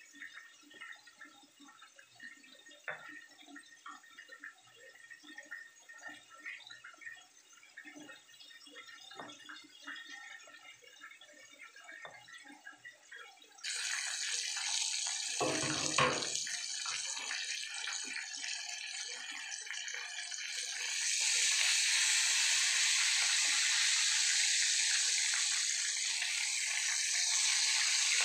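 Stone pestle knocking and grinding chilies in a stone mortar, soft and irregular. It cuts abruptly to whole fish frying in hot oil in a pan: a loud, steady sizzle with one low thump a couple of seconds after it starts, and the sizzle grows louder about three-quarters of the way through.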